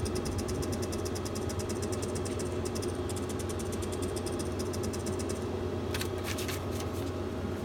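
Roulette betting terminal's steady low electrical hum, with fast runs of even electronic ticks as chips are placed on the touchscreen layout and a few sharper clicks near the end.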